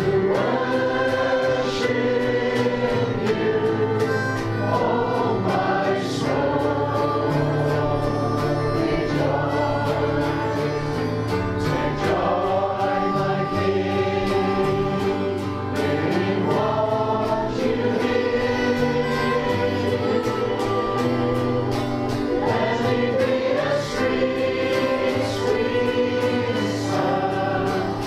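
A choir singing a gospel hymn over steady instrumental accompaniment.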